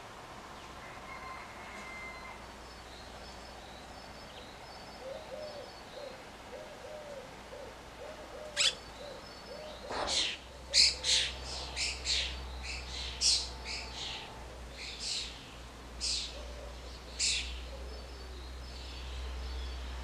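Red-rumped swallows calling: a single sharp chirp about eight seconds in, then a quick string of short, sharp chirps over the next seven seconds.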